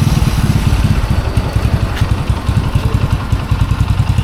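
Bajaj V15 motorcycle's single-cylinder engine idling just after being started, with a steady, even low pulsing.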